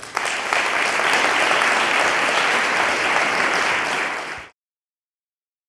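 Audience applauding, a dense, steady clapping that cuts off abruptly about four and a half seconds in.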